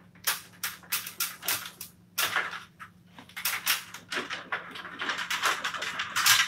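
Hand roller run quickly back and forth over Altro sheet vinyl flooring in a coved wall joint, making a run of short rasping strokes, about three a second. The rolling presses the coved flooring onto the wall so that it is bonded there.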